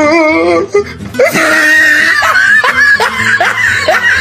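A woman laughing loudly, first a long wavering drawn-out laugh, then a run of short rising ha-ha bursts, with music.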